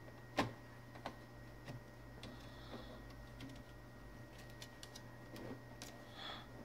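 Faint clicks and taps of a laptop hard drive in its metal caddy being slid and seated into the drive bay of a Toshiba C655D laptop's plastic case. The sharpest click comes about half a second in, with lighter ticks later on, over a steady low hum.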